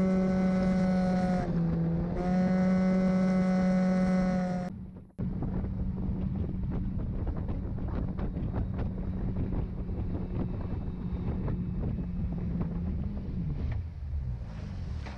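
Mercury 60/40 outboard jet running at speed, a steady engine whine that dips briefly about two seconds in. After a cut about five seconds in it is heard with wind noise and scattered knocks, and its pitch falls near the end as the boat slows off plane.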